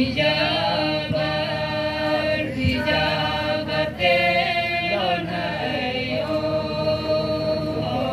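Group of voices chanting a traditional harvest-dance song, holding long notes that slide up and down in pitch.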